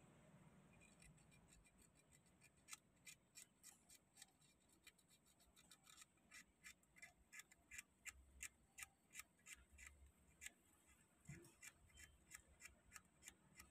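Faint, quick scratching strokes, about three a second, starting a couple of seconds in: sandpaper rubbed on a small crimped ring terminal of the steering wheel's horn ground wire, cleaning off dirt or corrosion suspected of breaking the horn's ground connection.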